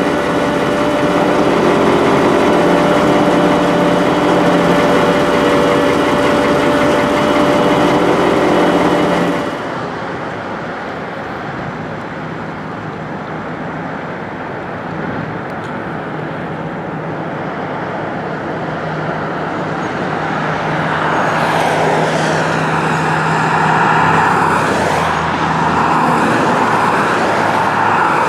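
Idling engine of a 1987 Ford C-Series garbage truck, a steady hum heard through its open cab door. After a cut about nine seconds in, a steady low engine hum goes on while cars pass on a wet road, the loudest passing a few seconds before the end.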